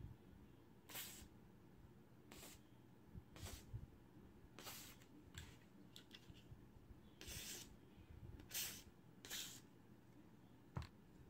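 WD-40 silicone lubricant aerosol sprayed through its straw onto pistol parts in about eight short hissing bursts, the longest a little past the middle. A single knock near the end.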